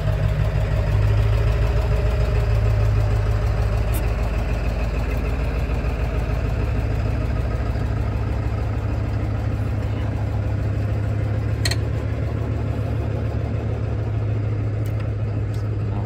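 Steady low mechanical drone, engine-like, running unchanged throughout, with a couple of faint sharp clicks from the brake pad being worked into its caliper bracket.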